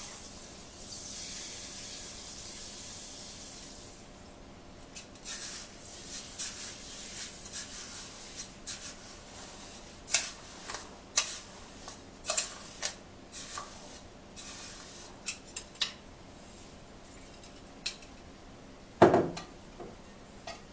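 Granulated sugar poured from a bowl into a large pot of water, a steady hiss of falling grains for the first few seconds. Then a run of sharp clicks and scrapes as the bowl is knocked and emptied against the pot, and one louder knock near the end.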